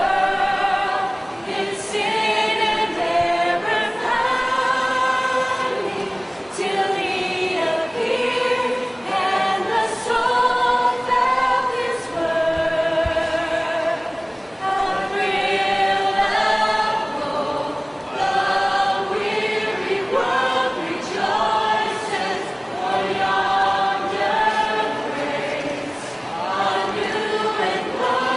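A flash-mob choir of many voices singing together in parts, with long held notes.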